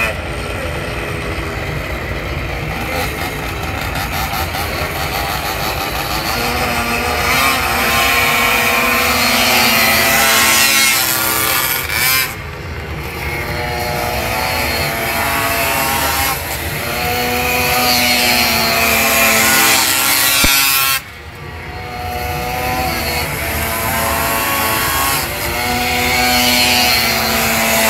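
Small two-stroke pocket bike engine revving hard as the bike laps the course, its buzzing pitch rising and falling with the throttle. The throttle snaps shut twice, about a third and three quarters of the way through, each time cutting the engine note sharply before it builds again.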